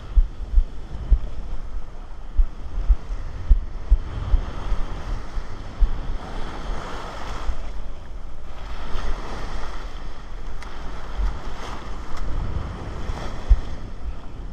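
Surf washing in over the shallows in repeated swells of foamy water. Wind buffets the microphone in low thumps, most often in the first half.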